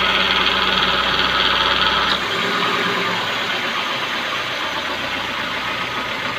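Maruti Suzuki Baleno engine idling with its power steering belt freshly tightened, and no noise from the steering. About two seconds in, a steady low hum and hiss cut out, and the engine runs on more quietly.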